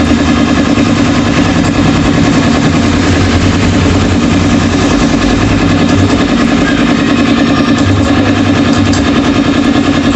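An engine idling steadily: a constant drone that holds the same speed, with no revving.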